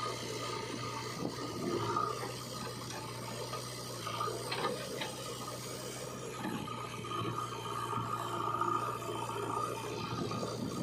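Diesel engines of a JCB 3DX backhoe loader and a Sonalika DI 740 tractor running steadily side by side, a constant low hum under a rough mechanical clatter.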